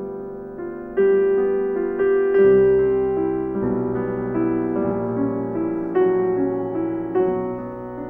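Background piano music: a gentle tune of struck notes that ring and fade, with lower notes joining about two seconds in.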